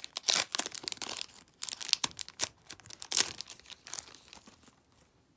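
Foil Pokémon booster pack wrapper being crinkled and torn open by hand: a quick run of sharp crackles for the first three seconds or so, then only a few faint rustles.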